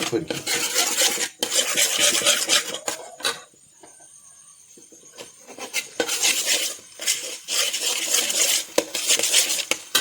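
A spatula scraping and stirring in a frying pan as eggs are scrambled in with the vegetables. There is a pause of about two seconds in the middle.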